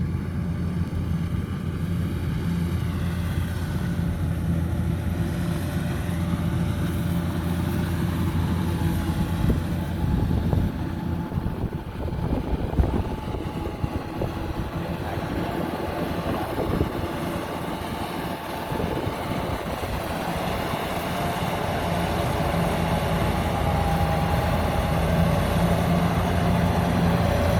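Kubota DC-105X combine harvester running while cutting rice: a steady engine drone with the clatter of the harvesting machinery, growing louder near the end as the machine comes closer.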